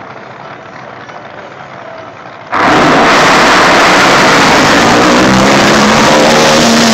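Drag boats launching at full throttle: a sudden, very loud engine noise cuts in about two and a half seconds in and holds, its pitch climbing slightly near the end. Before it, a low murmur from the grandstand crowd.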